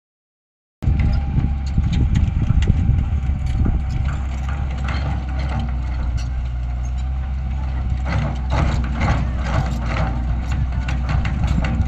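Heavy construction machine's engine running steadily with a low hum, with irregular metallic knocks and clanks throughout; it starts suddenly a little under a second in.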